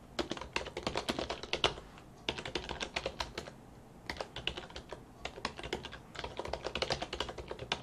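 Quick typing on a computer keyboard: runs of rapid keystrokes broken by short pauses.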